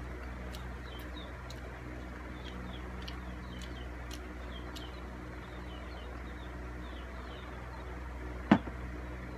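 Steady low background hum with faint, rapid, high chirping, and one sharp click about eight and a half seconds in.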